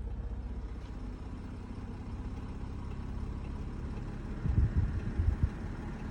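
Audi Q7 engine idling steadily at a raised idle with the climate control (air conditioning) switched on; about four and a half seconds in, a few loud, irregular low knocks come through over the idle. This knock shows up only with the climate control on and goes away when it is switched off.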